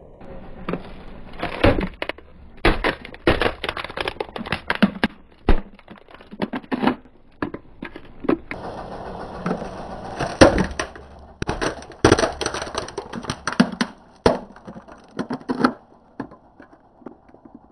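Car tyre rolling over and crushing plastic toys: a long irregular run of sharp cracks, snaps and crunches of breaking plastic. The cracking dies away near the end.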